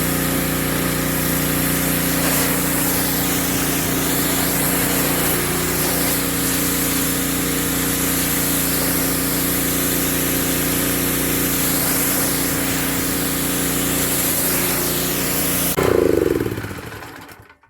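Husqvarna PW3200 gas pressure washer running steadily, its engine hum under the hiss of the high-pressure spray. About sixteen seconds in the engine is shut off and winds down, its pitch falling as it dies away.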